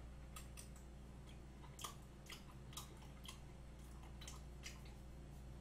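Faint wet mouth clicks and smacks of a person chewing a mouthful of soft chocolate cream cake, over a low steady hum.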